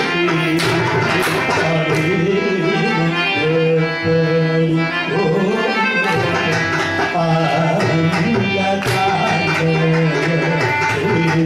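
Carnatic devotional song: male voices sing to a sustained harmonium, with continual mridangam strokes keeping the rhythm.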